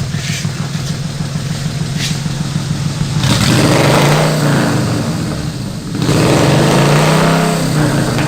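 Heavy truck engine sound running steadily, swelling louder and rising in pitch twice as it revs, about three seconds in and again about six seconds in.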